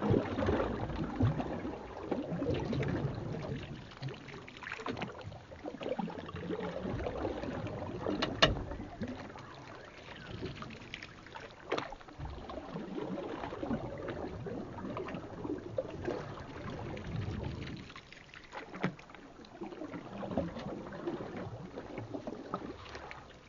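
Sped-up time-lapse sound of LEGO sets being built: a busy, irregular jumble of rustling with many small sharp clicks of plastic pieces.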